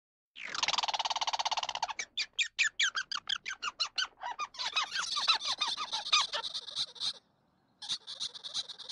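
Indian palm squirrel chirping. A fast, buzzy trill comes first, then a run of sharp chirps about five a second, then denser high-pitched chirping that breaks off briefly before starting again.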